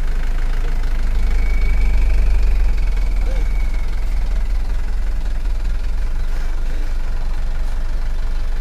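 A loaded dump truck's engine running with a steady low drone as the truck is manoeuvred slowly, growing a little louder for a couple of seconds near the start. A faint high whine rides over it for a few seconds.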